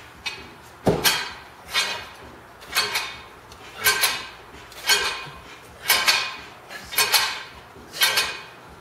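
Iron weight plates clanking and ringing against a loaded barbell with each overhead rep, about once a second in a steady rhythm.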